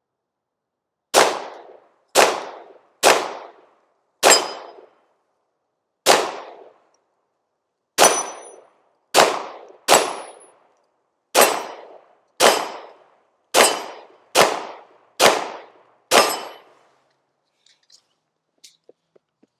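Bear Creek Arsenal Grizzly 102 9mm pistol firing fourteen single shots at a slow, steady pace, about one a second, each shot ringing briefly before it fades. A few faint clicks follow near the end.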